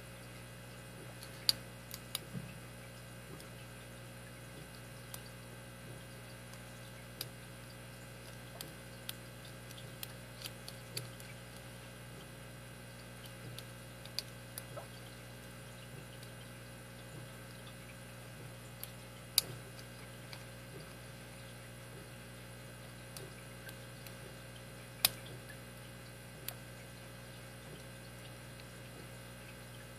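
Scattered small metallic clicks and taps of a lock pick and tension wrench working the pins of a Master Lock 160 padlock, a few seconds apart, over a steady low hum.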